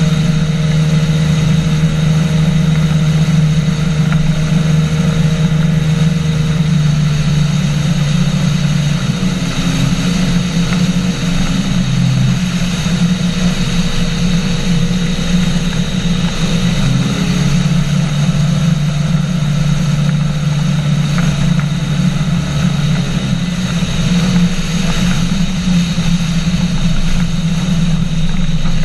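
Engine and pusher propeller of a Polaris flying boat, a microlight trike with an inflatable hull, droning steadily in flight, its pitch shifting slightly a couple of times.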